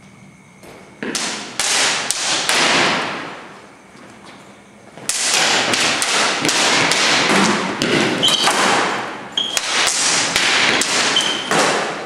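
Synthetic longswords clacking against each other in quick exchanges, with scuffing and rustling as the fighters move. The action comes in two flurries: a short one about a second in and a longer one from about five seconds in.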